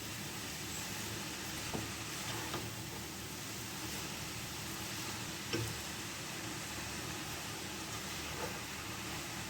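Chopped vegetables, cabbage among them, sizzling steadily in a hot pan as they are stir-fried for pancit, with a few short knocks of the stirring utensil against the pan, the loudest about halfway through.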